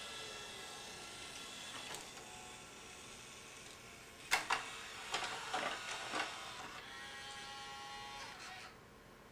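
Pioneer CLD-3070 LaserDisc player's Alpha Turn auto-reverse mechanism running as it switches to the disc's other side. A small motor whines, a series of sharp clicks and clunks comes about four to six seconds in, and a second motor whine follows and cuts off suddenly near the end.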